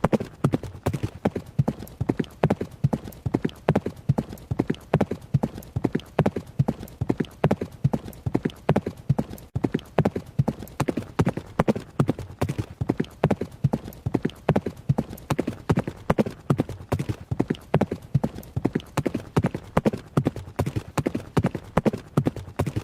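A horse running, its hooves striking in a steady, even rhythm that goes on without a break.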